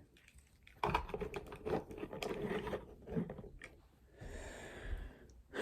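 Hard plastic Transformers figure being handled and its joints rotated: a quick run of small clicks and knocks, then a brief softer rubbing of plastic near the end.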